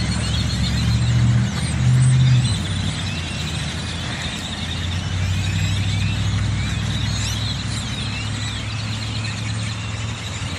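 A large flock of birds chirping all at once, a dense, continuous chatter of many overlapping calls. Under it runs a low, steady rumble of vehicle traffic, loudest about two seconds in.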